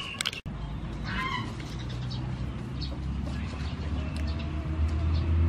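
Rural outdoor background: a short animal call about a second in and faint high chirps, then a low engine hum that grows steadily louder through the second half.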